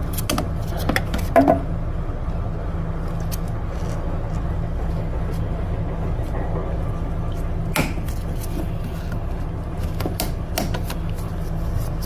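Scattered metallic clicks and taps of pliers working a spring hose clamp onto a coolant hose, a few close together near the start and a sharper one about eight seconds in, over a steady low hum.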